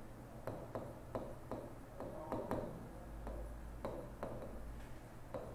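Pen tapping and sliding on the glass screen of an interactive smart board during handwriting: a run of faint, light, irregular ticks, roughly two a second.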